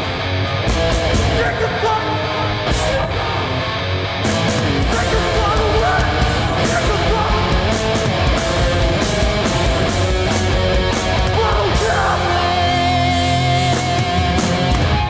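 Hardcore punk band playing live at full volume: distorted electric guitars, bass and drums. About twelve seconds in the guitar settles into held, ringing notes.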